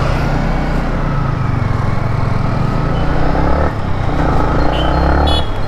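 Yamaha MT-15's 155 cc four-stroke single-cylinder engine running under way, with wind and road rush. The engine note shifts about two-thirds of the way through.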